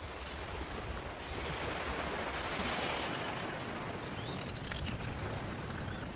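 Waves washing over shallow water, a steady hiss that swells about two seconds in and then eases. Near the end come a couple of faint, high bird chirps.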